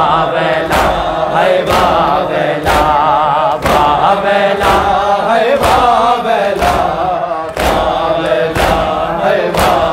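Male voices singing a Shia noha lament in a wavering, drawn-out melody, with a crowd of men beating their chests (matam) in unison: a sharp slap about once a second keeping the beat.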